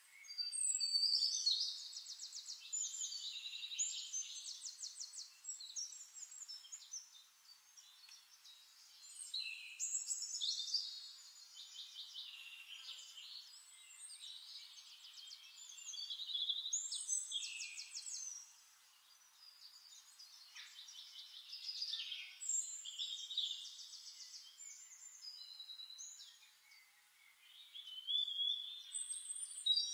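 Birdsong: phrases of rapid trills and whistled notes a few seconds long, repeating with short pauses.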